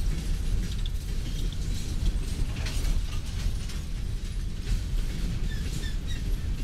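Steel-wheeled coal cars of a freight train rolling past: a steady low rumble of wheels on rail, with scattered clicks and short high squeaks from the wheels and trucks.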